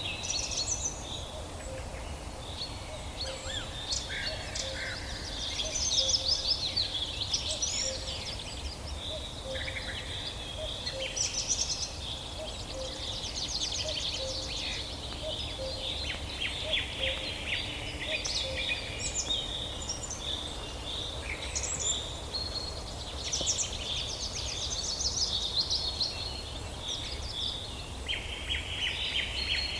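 Several birds singing and calling at once in a dense chorus of overlapping quick chirps and trills, over a steady low rumble.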